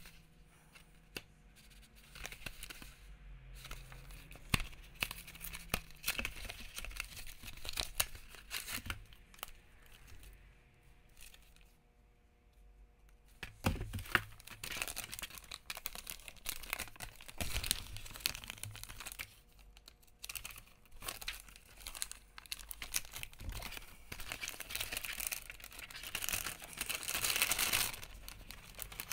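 Crinkling and tearing of MRE packaging: foil-laminate pouches and a plastic bag handled and torn open in irregular bursts, with a short lull about twelve seconds in.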